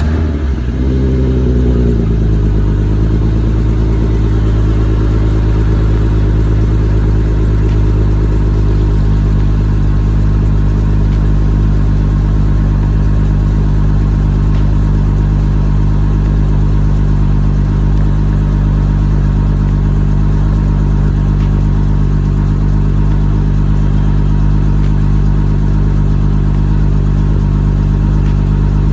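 3.6 VR6 engine with custom headers and a resonator-and-Magnaflow exhaust, just started: its revs flare up and settle back in the first two seconds, then it idles steadily.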